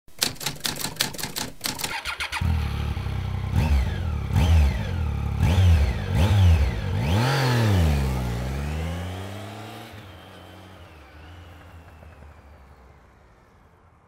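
A rapid run of sharp clicks, about six a second, for roughly two seconds, then a motorcycle engine comes in and is revved up and down several times in quick blips. The revs drop and the engine sound fades away over the last several seconds.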